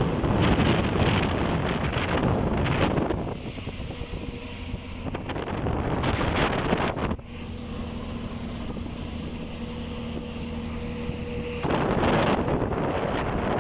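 Wind buffeting the microphone in strong gusts, loud at the start and again near the end. In the lull between the gusts a steady low mechanical hum is heard, likely traffic on the bridge.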